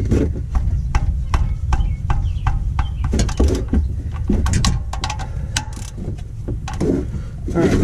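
Socket ratchet clicking in short swings as it loosens a 13 mm oil drain plug on the oil pan, with a steady low rumble underneath.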